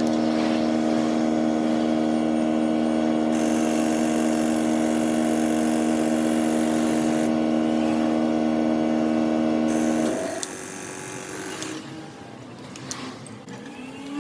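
A workshop machine's motor running with a steady hum, then stopping about ten seconds in, leaving quieter workshop noise with a few clicks.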